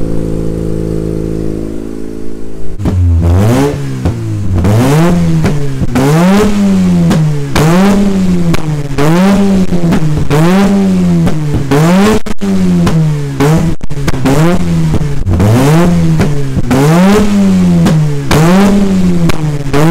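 Mazda RX-8's 13B twin-rotor Wankel rotary engine idling steadily through its exhaust, then, about three seconds in, revved over and over, roughly once a second, each rev rising and falling in pitch.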